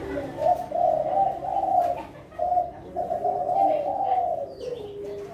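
Kelantan tekukur, a spotted dove strain, cooing in long rolling phrases, with a short pause about two seconds in and a lower drawn-out note near the end.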